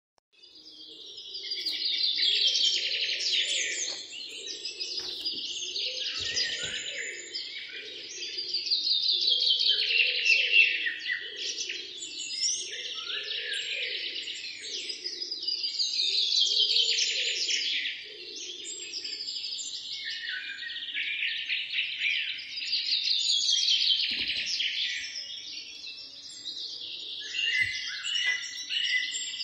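Many small birds chirping and twittering in a dense chorus that swells and fades about every seven seconds.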